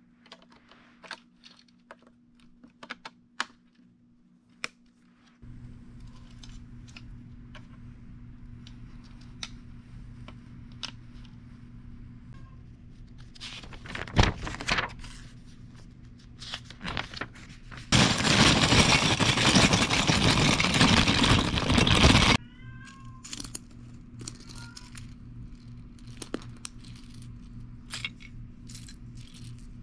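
LEGO bricks clicking and tapping as they are handled and pressed together, with a steady low hum coming in about five seconds in. A little past halfway a plastic parts bag rustles loudly for about four seconds, then the small clicks of loose bricks being sorted return.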